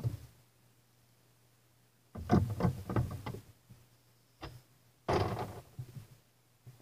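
LEGO model of a Brunswick GSX pinsetter cycling: plastic parts clattering and knocking in bursts, a short one at the start, a longer rattle about two seconds in and another burst about five seconds in.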